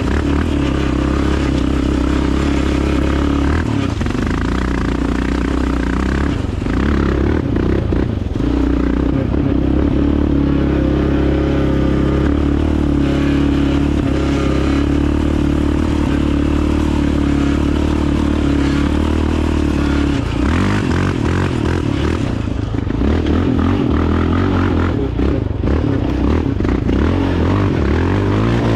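Dirt bike engine running at a fairly steady speed, its note breaking up and shifting about twenty seconds in.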